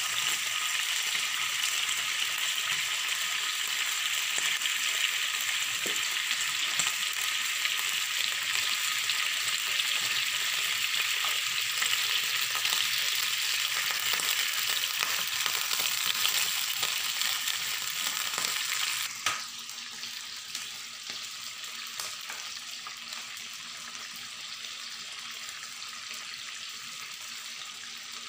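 Strips of marinated beef tapa sizzling as they fry in oil in a pan, with scattered clicks of metal tongs on the pan. About two-thirds of the way through, the sizzle drops suddenly to a quieter level.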